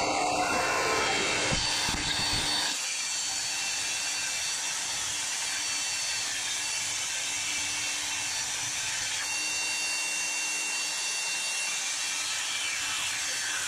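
Vertical band saw running, its blade cutting through the sheet-metal grille shell: a steady hiss with a faint whine. There is more low sound for the first three seconds or so, then it settles lighter.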